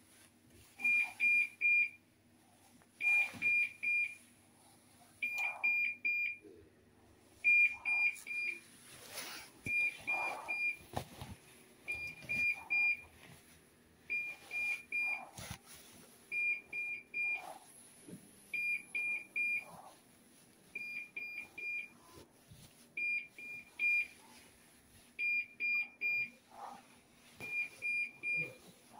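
Hospital bedside medical equipment alarm beeping: groups of three short high-pitched beeps, each group about a second long, repeating about every two seconds. The three-beep pattern is that of a medium-priority medical alarm.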